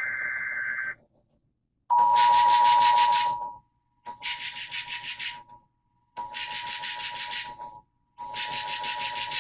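NOAA Weather Radio alert signal. A two-tone electronic data burst (the SAME header) ends about a second in. About two seconds in, the steady 1050 Hz warning alarm tone starts, with a buzzy electronic alarm pulsing over it about every two seconds. It is the lead-in to a special marine warning.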